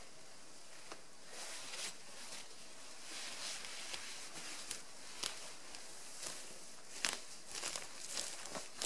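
Nylon hammock fabric rustling as a person climbs out of a hammock, then footsteps through low forest undergrowth, coming closer and louder near the end.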